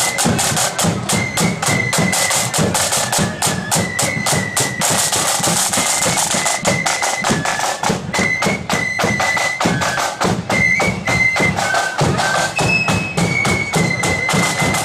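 Marching flute band playing: a high melody on flutes over a steady, rapid beat of side drums.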